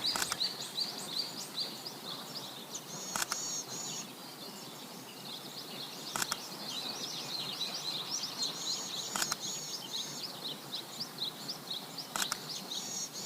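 Songbirds singing, a busy mix of chirps and warbling phrases. A sharp click cuts through four times, about every three seconds.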